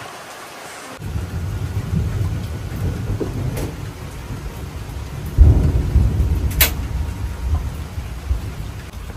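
Thunder rumbling over steady rain. It comes in about a second in and swells to a louder roll a little past halfway, with a single sharp click soon after.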